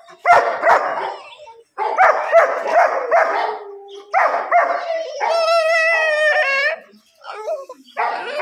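Kennel dogs barking in quick runs of three or four barks, with one long wavering cry about five seconds in.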